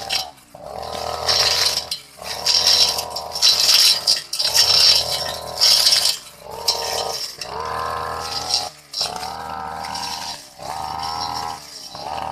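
Brush cutter engine revving in repeated surges about every second and a half, dropping off briefly between them as the blade sweeps through long grass.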